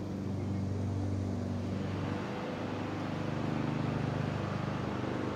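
Dirt bike engine running steadily at a low, even pitch. From about two seconds in it grows a little louder and rougher.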